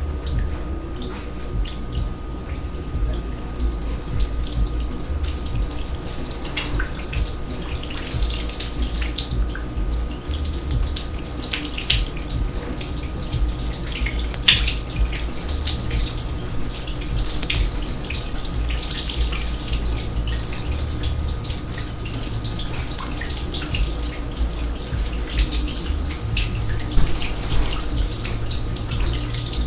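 Water running and dripping in a kitchen sink, with irregular drips and splashes throughout, over a steady low hum.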